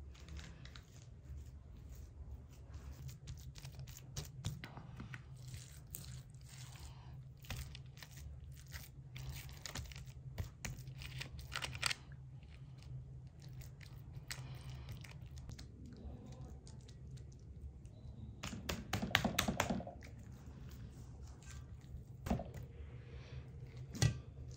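Food-preparation handling sounds: many small clicks, light crunches and rustles as food and utensils are worked by hand. A busier clatter comes about 19 seconds in and sharp knocks come near the end, over a steady low hum.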